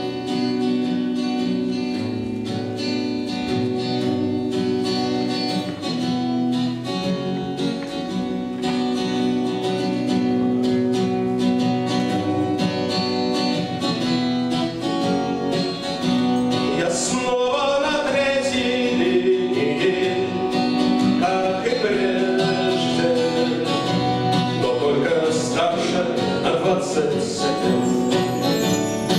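Live acoustic music: a steel-string acoustic guitar strummed in a steady rhythm over sustained chords from a bayan (button accordion). About halfway through, a wavering sung melody comes in over them.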